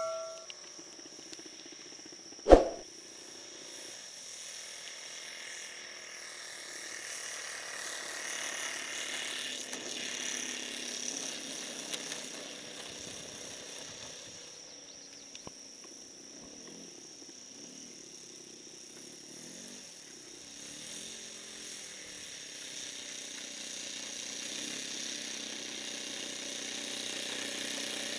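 Saito 80 four-stroke glow engine of a large RC model plane running at a distance, its pitch wavering as the throttle changes while the plane comes down and taxis on grass. A single sharp click sounds a couple of seconds in.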